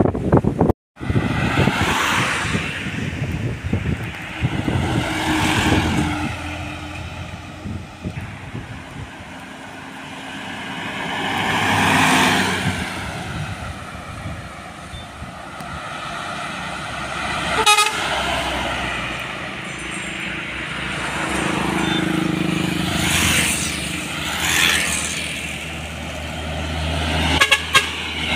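Road traffic passing one vehicle at a time: trucks and cars drive by, each rising and fading, with a vehicle horn sounding. Near the end a box truck's diesel engine drones deep as it passes close.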